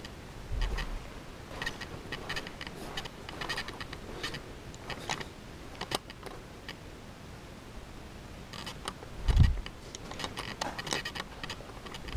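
Movement and handling noise of someone walking with a camera: scattered light clicks and rattles, with a dull low thump about nine seconds in.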